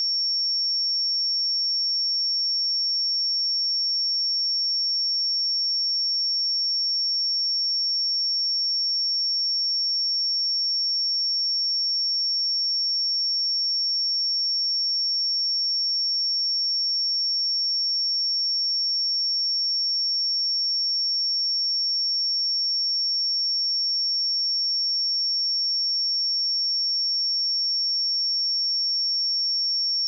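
A pure 5484 Hz sine-wave test tone, one steady high-pitched tone held unbroken at an even level.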